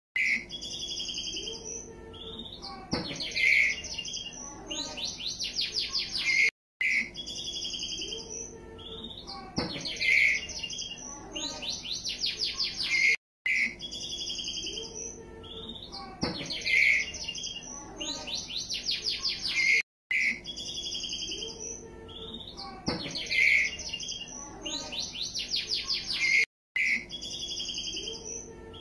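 White-rumped shama (murai batu) chick about two weeks old, calling in high chirps and quick runs of rapid repeated notes. The same sequence of calls repeats about every six and a half seconds, each time broken by a brief silent gap.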